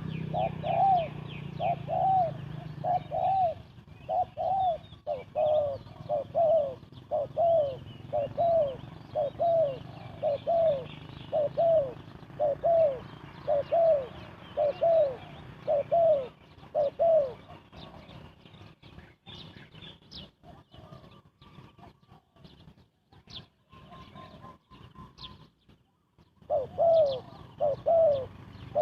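Spotted dove giving a fast run of short, arched coos, a little over one a second; the cooing stops about two-thirds of the way through and starts again near the end, with faint high chirps in the gap.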